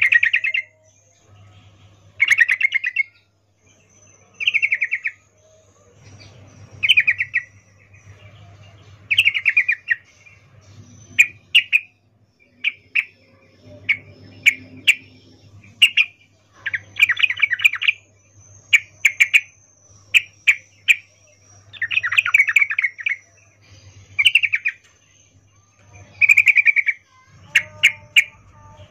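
Female yellow-vented bulbul (trucukan) calling: short bursts of rapid chattering notes about every two seconds, with sharp single chips in between. These are the breeding-condition calls of a female, used as a lure to set male bulbuls singing.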